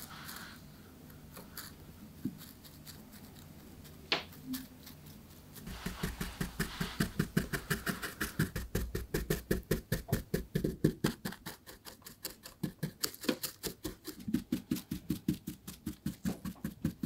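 Brush bristles rubbing rapidly over crinkly gold foil laid on a shoe, brushing off the excess: a fast, even run of short scratchy strokes, about five a second, starting about six seconds in after a quieter stretch with a single click.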